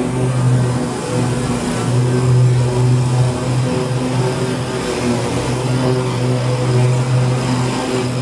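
BigDog Trooper stand-on mower running steadily under load while mowing tall weeds, its engine drone rising and dipping slightly.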